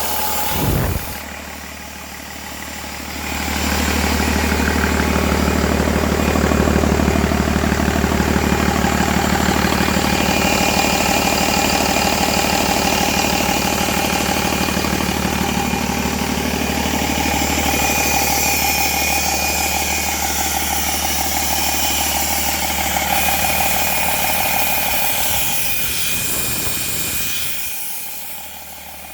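2011 Cummins ISB 6.7 inline-six turbo diesel running on a test run. It gets louder a few seconds in, runs steadily, then drops back near the end.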